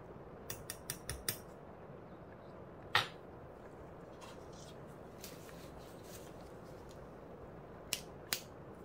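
Long metal tweezers handled: a quick run of small metallic clicks, then one sharp clack about three seconds in as they are set down on the tabletop. Two more light clicks come near the end.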